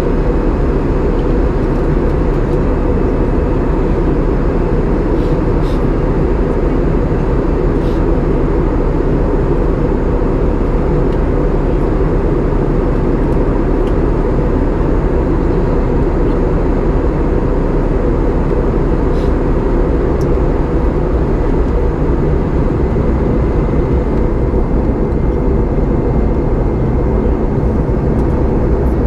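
Airbus A320 cabin noise in cruise: the steady, deep rush of airflow and engines heard from a window seat, even and unbroken throughout. A faint steady whine joins in during the second half.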